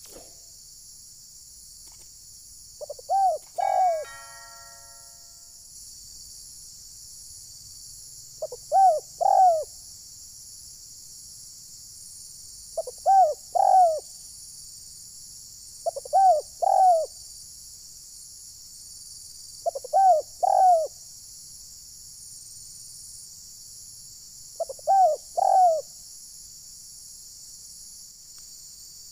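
Spotted dove (terkukur) cooing: six short phrases of two or three coos each, about every four seconds, over a steady high hiss.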